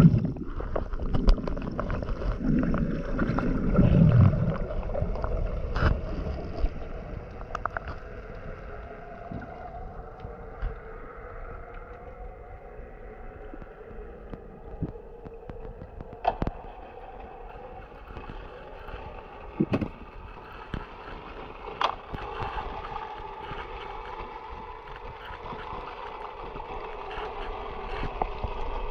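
Underwater sound through an action camera: loud bubbling and water rush for the first few seconds as the freediver goes under, then a steady low underwater hum with a few sharp clicks.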